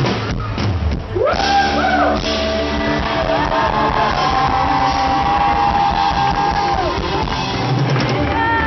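A live pop-rock band playing, with guitar and drums under a singer who glides up about a second in and then holds long notes, echoing in a large hall.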